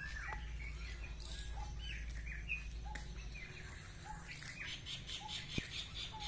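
Small birds chirping: short arched calls repeated about once a second, with some higher chirps mixed in, over a low rumble that fades about halfway through.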